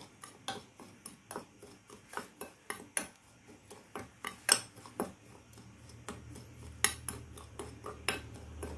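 A spoon stirring dry chili-powder seasoning in a glass bowl, with irregular light clinks and scrapes of the spoon against the glass, two of them louder, about halfway through and later on.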